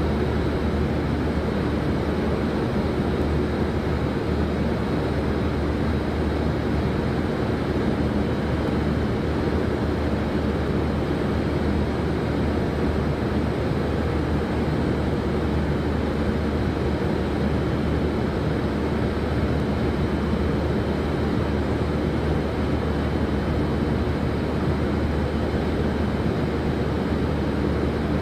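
Steady drone of factory machinery: an even noise with a strong low hum underneath.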